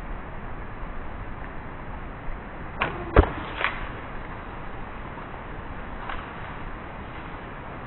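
A bow being shot at a fox: one sharp snap of the release about three seconds in, with a smaller click just before it and another just after, over a steady outdoor noise.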